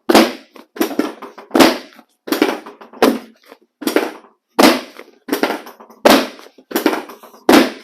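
Chiropractic drop table's pelvic section snapping down again and again under thrusts to the pelvis: about a dozen loud clacks, roughly one every 0.7 s.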